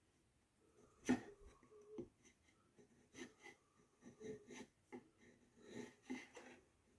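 Freshly sharpened chisel test-cutting wood: faint, irregular scrapes and small knocks as the edge takes shavings off, with the clearest knock about a second in.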